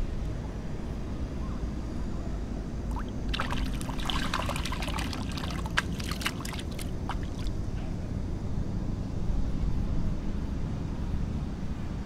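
Water splashing and dripping in a quick patter of small splashes from about three seconds in, for some four seconds, over a steady low rumble.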